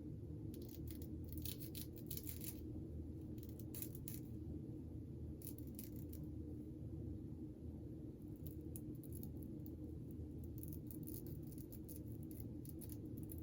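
Wig lace being cut with a blade: irregular runs of short, crisp cutting strokes, in several bursts with pauses between, over a steady low room hum.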